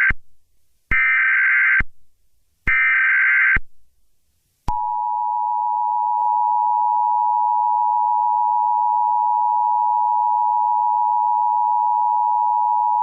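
Emergency Alert System tones: the last two of three SAME header data bursts, each a buzzy warble about a second long with a second's gap between. About a second later comes the steady two-tone EAS attention signal, which holds for about eight seconds and then cuts off, announcing that an emergency alert is about to be read.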